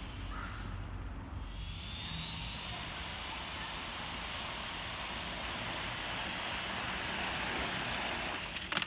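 Small electric radio-controlled helicopter (Robbe Blue Arrow XL, a Walkera Lama 400D twin) running with its rotor spinning: a steady whoosh with a high electric-motor whine that slowly builds and rises in pitch. A few sharp clacks come near the end.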